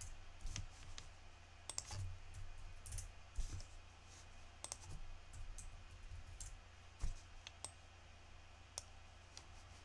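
Irregular clicks of a computer mouse and keyboard, a few sharp ones standing out, over a low steady hum.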